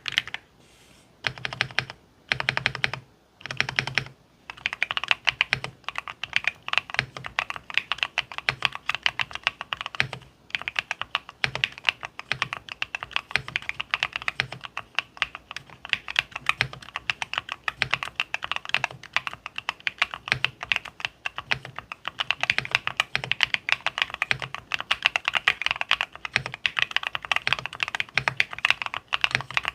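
Typing on an M3 Pro custom mechanical keyboard with BSUN green switches, with a dense clacking of keystrokes. It starts as three short bursts, then settles into steady fast typing with one brief pause partway through.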